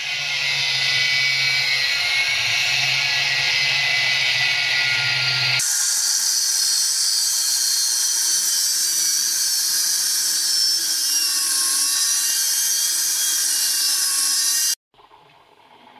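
Angle grinder with an abrasive disc cutting into the steel bolt of a rusty shackle: a steady, loud grinding whine. It changes character abruptly about five and a half seconds in, and cuts off suddenly near the end.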